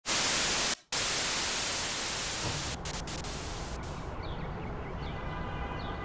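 Television static: a loud, even hiss that cuts out briefly just under a second in, then thins out at around four seconds, leaving fainter sound with short high chirps.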